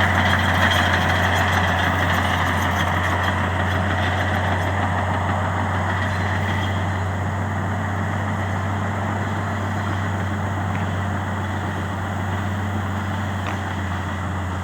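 Bulldozer's diesel engine running steadily with a deep hum, slowly getting quieter.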